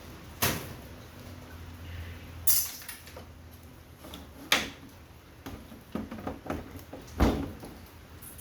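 Plastic housing parts of an air-conditioner unit knocking and clattering as they are handled and pulled off: four sharp knocks a couple of seconds apart, with lighter clicks between them.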